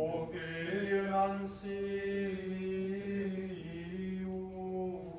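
Gregorian chant sung by male voices: slow, long-held notes that move up and down by small steps.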